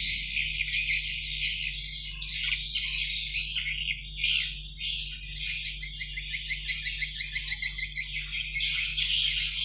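Swiftlet chicks calling: a dense, continuous chorus of many overlapping high-pitched chirps and twitters, with a faint steady hum underneath.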